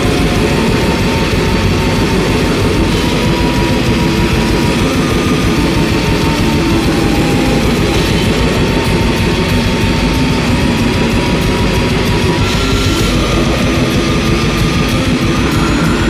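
Lo-fi blackened war metal: a dense, unbroken wall of distorted guitars and drums, with a few thin held melody notes over it.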